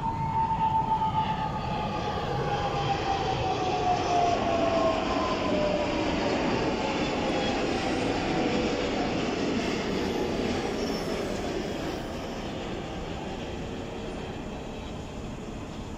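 Jet engines of large twin-engine airliners passing low overhead: a steady roar with a whine that falls in pitch over several seconds as the aircraft moves past. The sound is loudest in the first few seconds and slowly fades.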